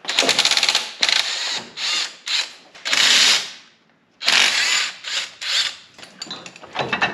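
Socket ratchet wrench clicking in quick bursts, separated by short pauses, while the motor and transmission mount bolts are backed out.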